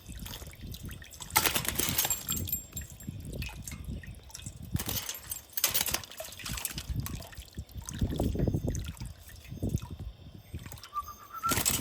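A caique parrot splashing in its bath water: continual dribbling and sloshing, broken by several short, loud bursts of splashing.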